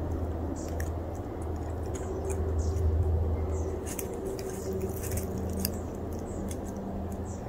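Scattered faint, crisp crackles from a cat in dry undergrowth, over a steady low hum.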